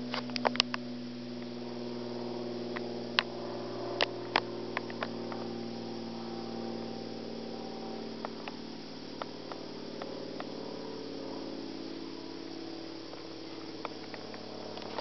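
Aircraft engine droning steadily, sounding like an old-fashioned propeller plane, its pitch drifting slowly. Scattered sharp clicks sit on top of it.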